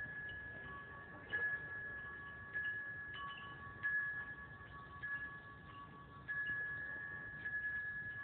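Chimes ringing: a higher and a lower tone hang on throughout and are struck again irregularly, about once a second.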